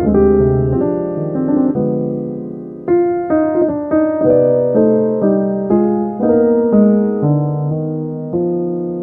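Piano music: notes and chords struck one after another and left to ring and die away.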